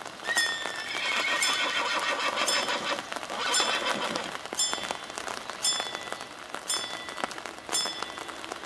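Level-crossing warning bell ringing in short strikes about once a second as the half-barriers lower. Between about one and four seconds in it turns into a denser, busier ringing while the barrier arms swing down. Rain hisses underneath.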